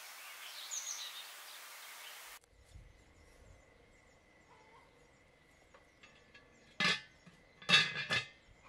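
Outdoor hiss with birds chirping, which cuts off abruptly about two and a half seconds in. After a quiet stretch, a black metal cauldron's lid and wire bail handle clank, once just before the last couple of seconds and then in a quick cluster of sharp, ringing clanks.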